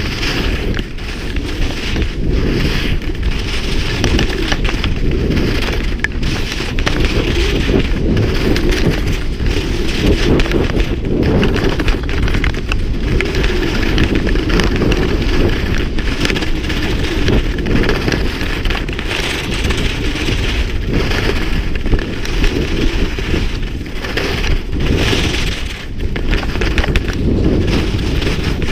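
Wind buffeting an action camera's microphone during a ski run, with the hiss and scrape of skis on packed snow rising and falling with the turns.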